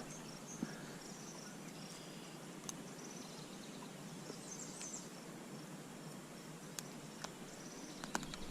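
Faint outdoor ambience: a steady hiss with faint high chirping of insects or birds, and a few light clicks.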